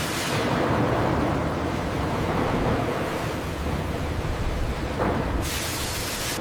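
Steady noise of plywood-factory machinery: a dense, even hiss and rumble with no clear rhythm. A brighter hiss joins about five seconds in.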